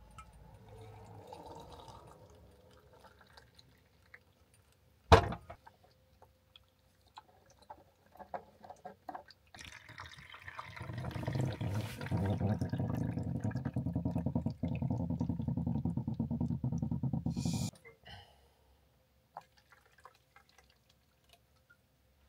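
Water running into a container for about seven seconds, then stopping abruptly. A single sharp click comes about five seconds in.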